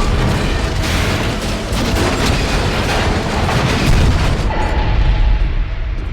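Sci-fi sound effect of a Venator-class Star Destroyer being destroyed: a heavy, continuous run of explosions and deep booms with repeated blasts. The sound thins out over the last second or two.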